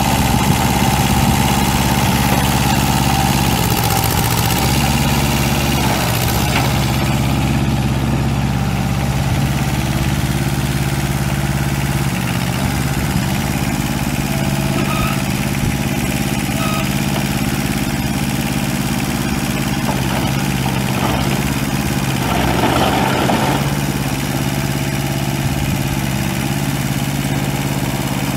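Kubota L185DT tractor's Z751 two-cylinder diesel engine running steadily, its pitch dipping briefly a few seconds in before settling again.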